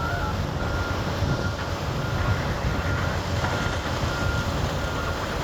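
Heavy diesel mining machinery, a hydraulic excavator and an articulated dump truck, running with a steady low rumble, while a backup alarm beeps in short high tones about three times every two seconds.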